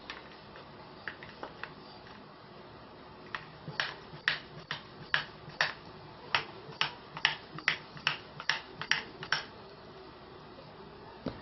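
Homemade PVC airgun being pumped by hand: a run of about fifteen sharp clacks, roughly two a second, with a few scattered clicks before it.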